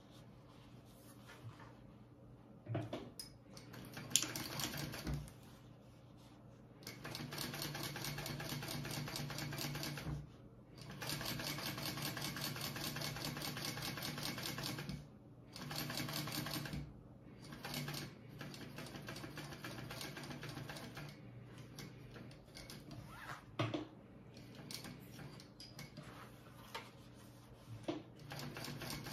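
Kingmax GC0302 industrial sewing machine stitching in runs: a short run about four seconds in, then two longer runs of three to four seconds each, then a few short bursts. In the pauses, fabric is shifted by hand under the foot.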